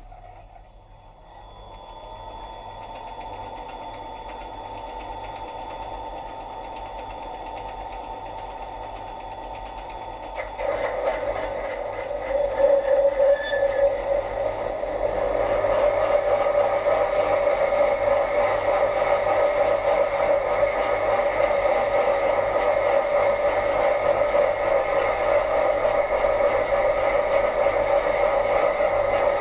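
Mini lathe running with a steady motor and gear whine as its chuck spins an aluminium bar. It comes up over the first couple of seconds, then gets louder and fuller in two steps, about a third of the way in and again about halfway.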